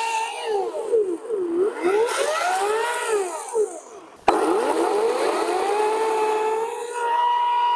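EGO CS1804 56-volt brushless cordless chainsaw cutting logs: a high motor whine whose pitch swoops down and back up several times as the chain bites into the wood and frees again. About four seconds in it fades briefly, then comes back abruptly and winds up to a steady high whine.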